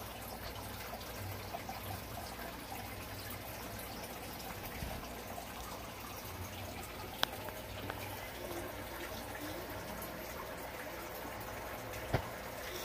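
Aquarium water bubbling and trickling steadily from the tank's air bubbler and filter, over a low steady hum. Two short sharp clicks come about seven and twelve seconds in.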